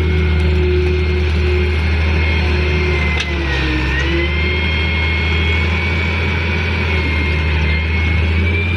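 Excavator's diesel engine running steadily with a high hydraulic whine that dips in pitch briefly about three seconds in. One short knock about three seconds in.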